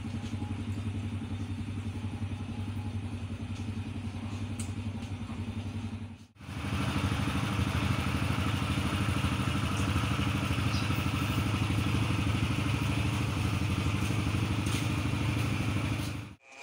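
A small engine running steadily. It cuts off briefly about six seconds in, then resumes louder.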